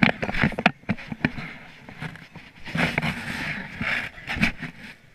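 Knocking and rustling handling noise from a chest-mounted GoPro as the child wearing it moves about, with an indoor hubbub underneath.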